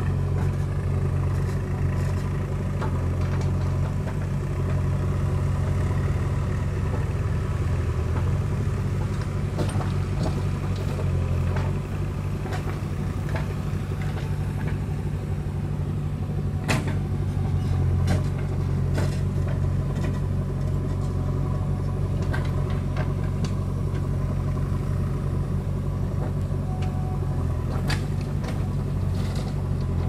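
Diesel engine of a JCB 3DX backhoe loader running steadily as the backhoe digs and loads soil, with a few sharp knocks from the working arm and bucket, the clearest about 17 seconds in.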